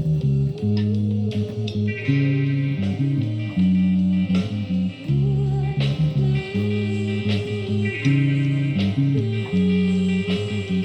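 Electric bass guitar playing a line of held low notes, the note changing every second or so, along with a recorded rock song full of sustained electric guitars.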